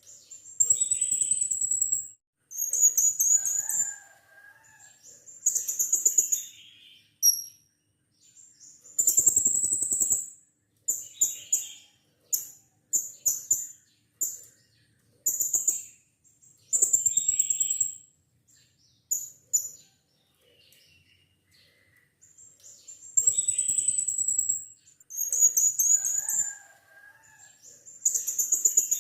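Blue-crowned hanging parrot (serindit) giving shrill, very high-pitched calls in rapid pulsed bursts of one to two seconds each, repeated with short pauses between.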